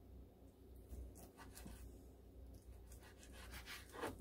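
Faint, scattered taps and scrapes of a knife cutting raw chicken breast into chunks on a plastic cutting board, with one slightly louder tap near the end.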